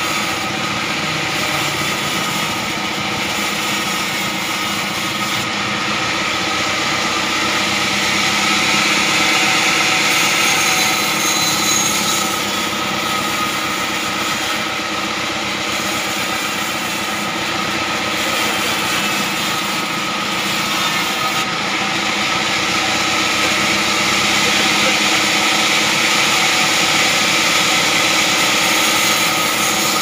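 Sawmill band saw cutting through a large, very hard acacia log, its blade hissing through the wood over the steady hum of the machine. The cutting noise swells about a third of the way in and again near the end.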